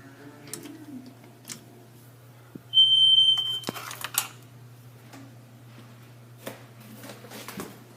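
Fire alarm sounder giving one short, loud, steady high beep about three seconds in, the brief signal of a device tripped during a walk test of the system. Scattered clicks and knocks of handling come before and after it.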